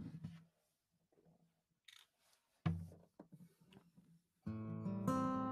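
Knocks and thumps of handling as an acoustic guitar is settled into place. About four and a half seconds in, a chord is played, struck again half a second later and left ringing.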